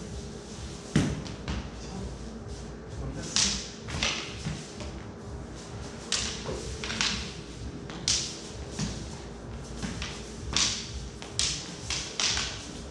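Irregular sharp knocks and thuds from a sword-and-dagger fencing bout: feet stamping and sliding on the hall floor and blades meeting, with the loudest thud about a second in. The knocks echo in the large hall.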